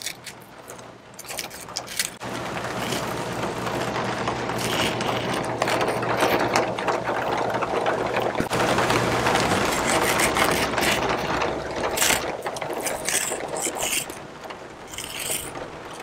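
A steady mechanical hum with a low tone, like a motor running, comes in about two seconds in, holds for some ten seconds and eases off near the end. Scattered clicks and scrapes sound around it.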